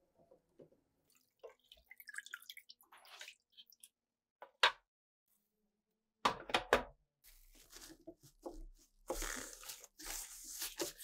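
Water dripping and splashing faintly from parts in a soaking bath. Then sharp knocks as the tape recorder's hard plastic housing pieces are set down on a wooden tabletop, followed by a cloth rubbing over the plastic housing with a rough, steady swishing near the end.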